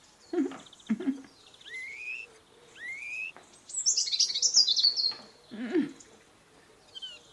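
Small animal calls: two rising whistles, then a burst of high chirping about four seconds in, with a few short low sounds between them.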